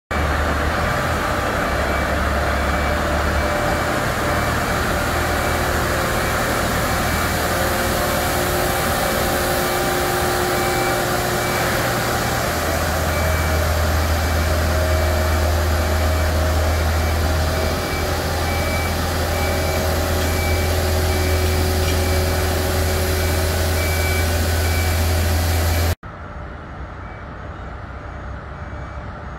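Colmar SL160D railcar mover's Volvo diesel engine running as it pulls a string of rail wagons, with its warning beeper sounding in repeated short beeps. Near the end the sound cuts abruptly to a quieter, more distant mix of the engine and the beeping.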